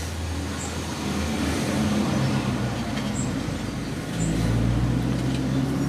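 A steady low mechanical hum that changes pitch and grows a little louder about four seconds in, with a few faint small clicks.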